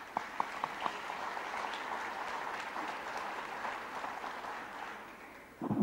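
Audience applause in a large hall. It starts with a few separate claps, swells into steady clapping, then fades out near the end.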